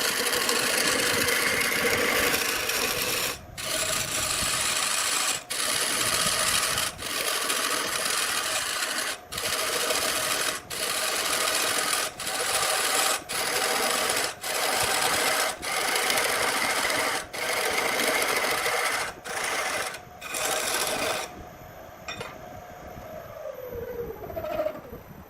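Electric power tool running at full speed with a steady whine over loud grinding noise, broken by brief dropouts. Near the end it is switched off and its motor winds down with a falling whine.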